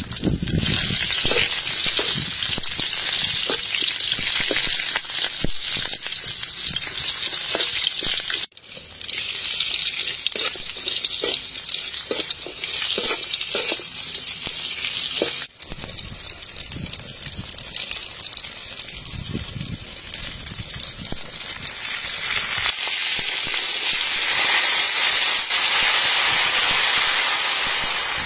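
Garlic, root slices and leaves sizzling in hot oil in a large metal wok, with a metal spatula clicking and scraping against the pan. The sound breaks off and resumes a few times, and near the end it turns into a loud steady rush of liquid being poured into the wok.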